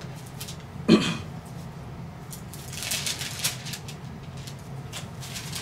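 Pages of a Bible being leafed through: soft paper rustles in the middle and again near the end, over a low steady hum. A brief vocal sound about a second in is the loudest moment.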